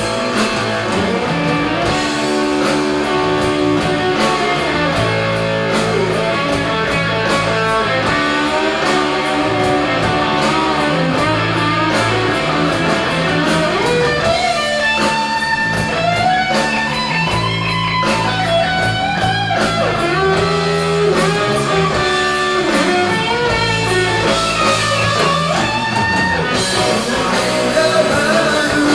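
Live rock band playing an instrumental passage: electric guitars over bass and drums, with a lead line of bent notes coming forward about halfway through.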